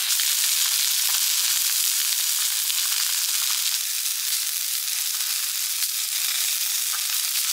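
Broccoli sizzling and steaming in a cast iron skillet with a little water added, a steady crackling hiss.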